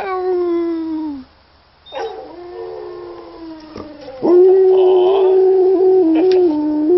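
English Springer Spaniel howling in answer to a recorded howl of another Springer. A falling howl about a second long opens, a weaker one follows about two seconds in, and from about four seconds in a loud, long howl holds nearly one pitch.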